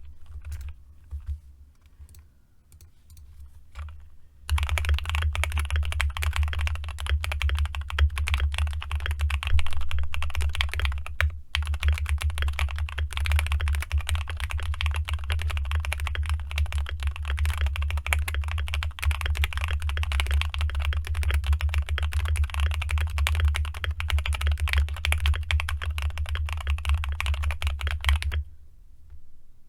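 Fast, continuous typing on a custom mechanical keyboard: an Akko MOD007 board with lubed JWK Black linear switches, Akko ASA keycaps, foam-filled case and tape mod. A few sparse keystrokes first, then a dense run of key clacks lasting over twenty seconds with one brief pause, over a steady low hum.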